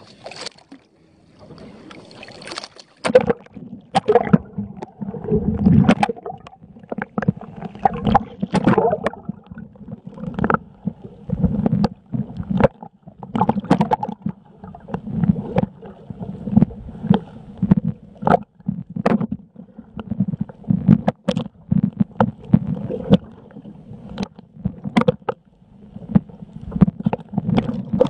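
Seawater sloshing and gurgling around a camera dunked just under the surface, with frequent irregular knocks and slaps as the water hits it.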